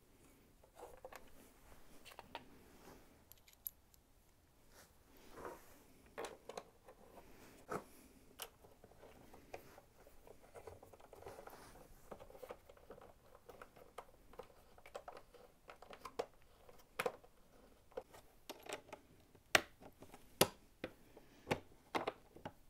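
Light clicks and rustling as small bolts and parts are handled and fitted by hand at the bottom of a motorcycle fork leg, with a few sharper clicks near the end.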